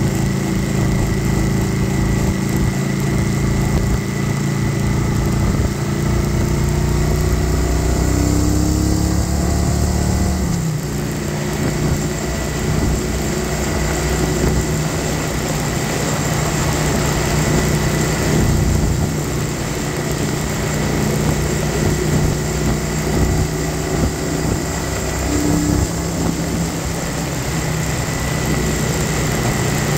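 Kawasaki Vulcan 900 Classic SE's V-twin engine running under way on the road, mixed with wind and road noise. The engine note changes about ten seconds in.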